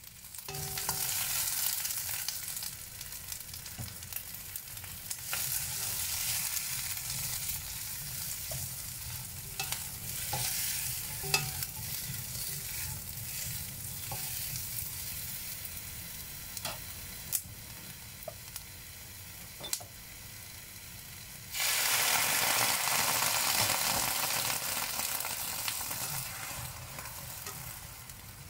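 Bell pepper chunks sizzling in a hot stone-coated wok while a slotted spatula stirs them, with scattered taps and scrapes of the spatula against the pan. The sizzle gets much louder for about five seconds near the end.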